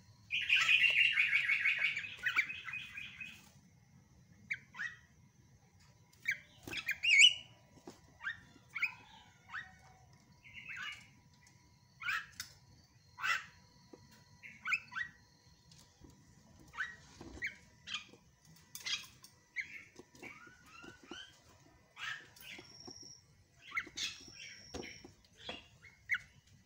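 Javan myna calling: a loud, harsh rattling chatter over the first three seconds or so, then a long run of short separate chirps and squeaks, with two brief held high whistles near the end.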